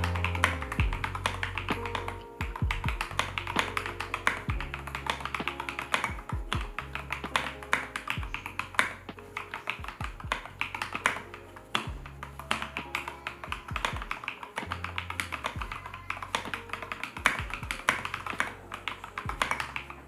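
Typing at about 60 words a minute on a Keychron K6 mechanical keyboard fitted with lubed Glorious Holy Panda tactile switches, SA-profile keycaps and neoprene foam in the case: a dense, continuous run of keystroke clacks. Background music with steady low bass notes plays under it.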